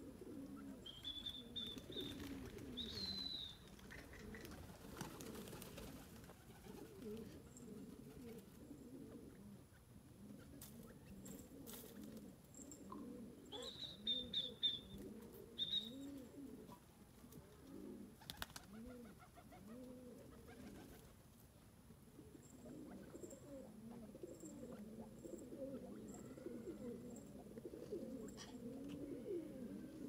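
Doves cooing softly and continuously, in short low repeated notes. A small bird adds a few high chirps about a second in and again around fourteen seconds.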